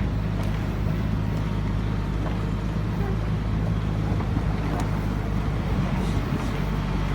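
Diesel engine of a Kobelco SK120 hydraulic excavator running steadily, a low even hum.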